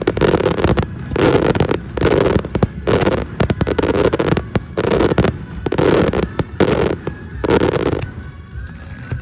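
Fireworks in a rapid finale barrage: a loud blast about every three-quarters of a second, mixed with sharp crackling, stopping about eight seconds in.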